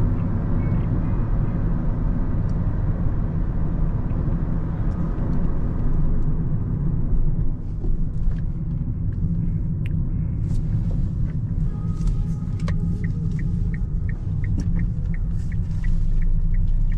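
Cabin rumble of a Kia Ceed's 1.4-litre, 99 hp engine and road noise while driving. From about two-thirds of the way in, the turn-signal indicator ticks steadily, a little over two clicks a second, as the car turns.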